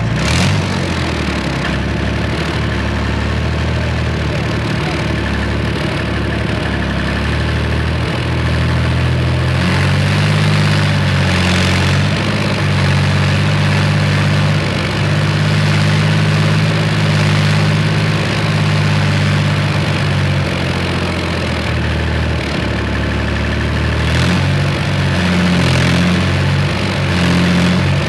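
A BVP-1 infantry fighting vehicle's UTD-20 V6 diesel runs under way, heard from on top of the hull. The engine note climbs and grows louder about a third of the way in, eases off, then climbs again near the end.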